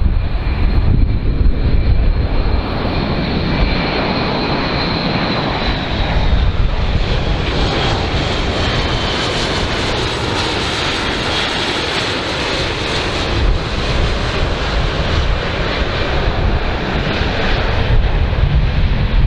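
Airbus A400M Atlas's four TP400 turboprop engines with eight-bladed propellers, a loud steady drone with a strong low rumble as the aircraft flies low past. A thin high whine rides on top and dips slightly in pitch partway through, and the sound brightens near the middle as it comes closest.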